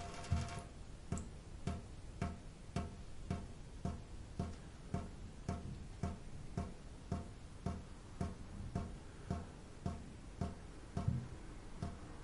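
Steady, even ticking, a little under two ticks a second, each tick carrying a short pitched note.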